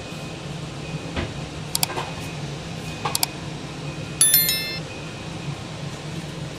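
Subscribe-button animation sound effect: two sharp clicks, then a ringing bell chime about four seconds in, over a steady low hum.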